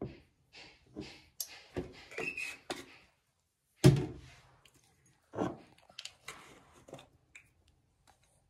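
Light kitchen taps and knocks of a spoon and spice containers while cubed potatoes are seasoned, with one louder thud about four seconds in.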